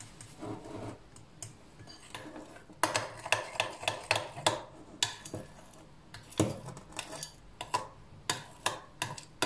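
Metal spoon stirring a thick, wet cocoa batter in a glass bowl: soft scraping at first, then quick repeated clinks of the spoon against the glass from about three seconds in, with one duller knock around the middle.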